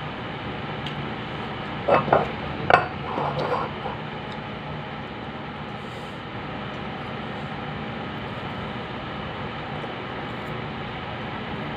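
A plate and food handled by hand while eating, giving a short burst of clinks and knocks about two to four seconds in, over a steady low room hum.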